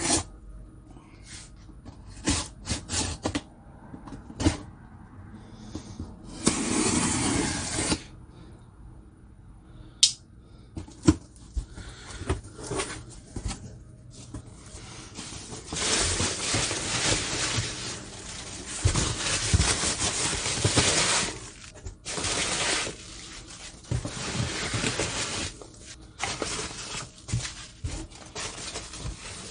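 Packing tape peeled from a cardboard box and the flaps opened, with a few sharp clicks and a tearing rustle early on. Then a hand rummaging through foam packing peanuts, with a long stretch of rustling in the second half.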